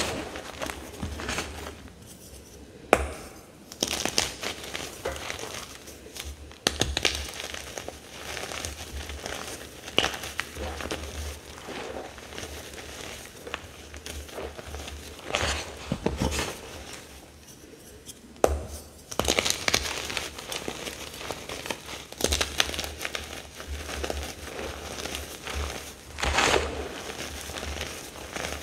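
Reformed gym chalk being squeezed and crumbled by hand in a bowl of chalk powder: irregular crunching and crackling, with a few sharper, louder cracks.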